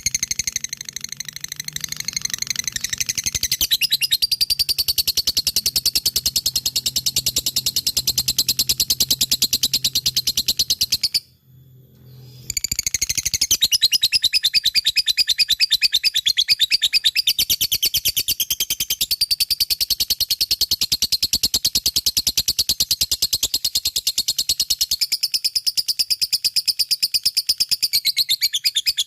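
Lovebird in long, continuous 'ngekek' song: a rapid, unbroken stream of high-pitched chattering notes. It breaks off for about a second partway through, then starts again.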